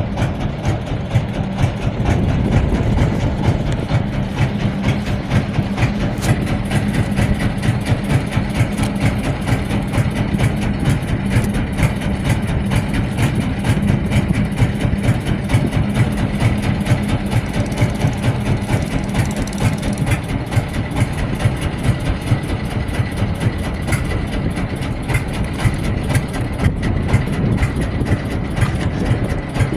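Boat engine running steadily under way, a dense low drone with a steady hum that fades out about twenty seconds in.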